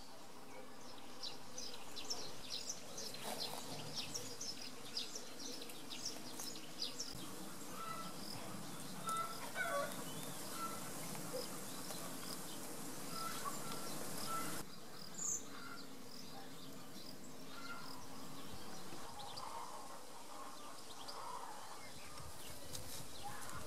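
Outdoor garden ambience: a steady quiet background with scattered short, high chirps and a few brief mid-pitched notes. The background changes abruptly about fifteen seconds in.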